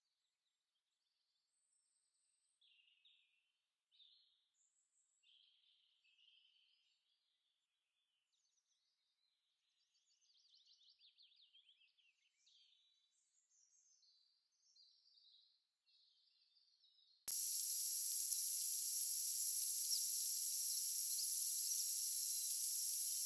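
Faint, scattered bird chirps and calls. About seventeen seconds in, a loud, steady, high-pitched hiss cuts in abruptly.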